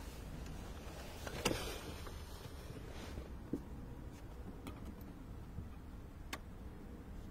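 A low steady background hum with a few light clicks and one louder knock about a second and a half in.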